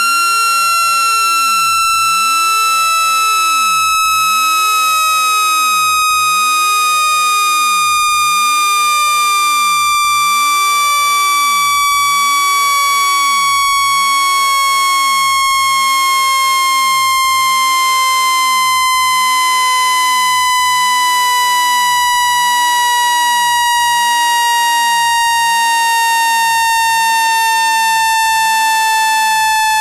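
Speaker-cleaning tone: a single loud, buzzy electronic tone with strong overtones, sliding slowly and evenly down in pitch at a steady level.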